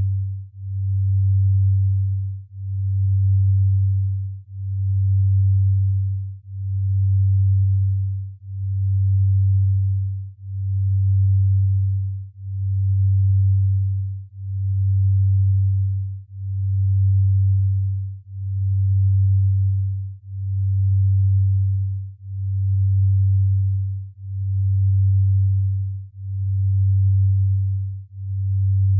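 Low pure tone of binaural beats for delta-wave sleep entrainment, swelling and fading evenly about once every two seconds.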